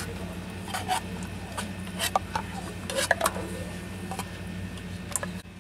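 A metal spoon scraping inside a tin can of sweetened condensed milk to work the thick milk out, in short irregular scrapes and taps, over a steady low hum.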